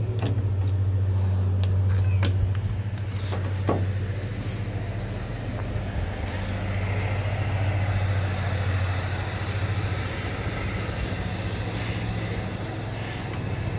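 Steady low engine hum, with a few light clicks in the first four seconds.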